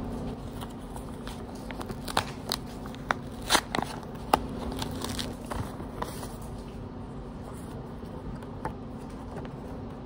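Paper crackling and rustling as an envelope and its folded paper inserts are opened and handled by hand, with a cluster of sharp crinkles a few seconds in. A steady low hum runs underneath.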